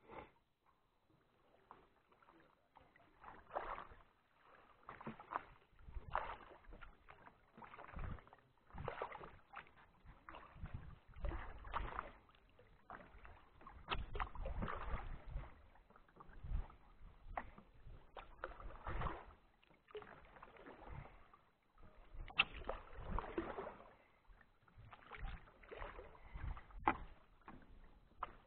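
Kayak paddle strokes in calm water: the blades dip and pull through with a swish and splash about every second or so, with a few sharp clicks among the strokes.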